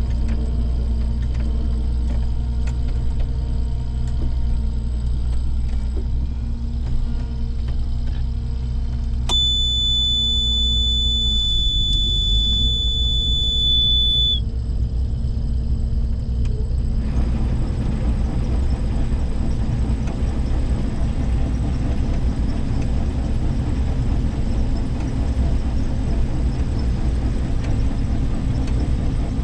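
A combine's engine running steadily. About nine seconds in, a high-pitched steady warning beep sounds for about five seconds, and the engine note dips briefly. From about seventeen seconds in, a louder rushing machine noise joins and runs on.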